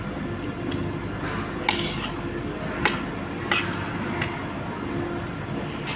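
Cutlery clinking against a dish: about five sharp clinks, irregularly spaced roughly a second apart, over a steady low background hum.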